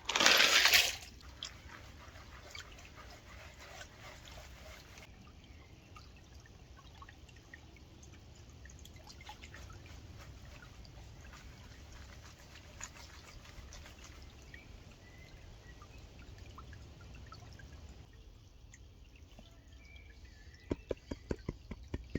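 Water sloshing and trickling as gravel is washed in a gold pan in a stream, starting with a loud splash. A quick run of sharp ticks comes near the end.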